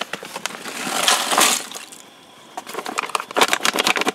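Freeze-dried potato flakes and chicken chunks poured from a foil-lined pouch into a pot of cold water. A rushing slide of the dry contents swells and fades about a second in, then the pouch crinkles and clicks in a quick string as it is shaken empty.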